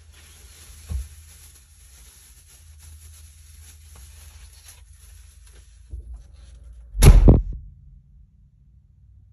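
A steady hiss with a soft knock about a second in, then a loud, short thump about seven seconds in. The hiss cuts off with the thump, leaving a low hum.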